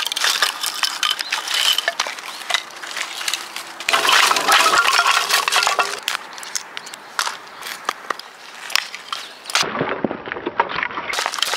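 Split firewood knocking and clattering on gravel as it is handled and pulled from a mesh bag. Near the end a small Gränsfors Bruk hatchet splits kindling with sharp knocks.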